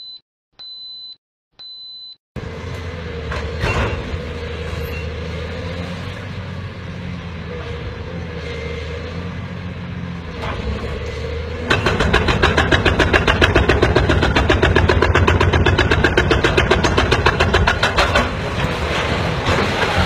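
A few short high beeps, then a heavy diesel machine running with a low, steady hum. Just before halfway a loud, rapid, evenly spaced rattling starts and goes on.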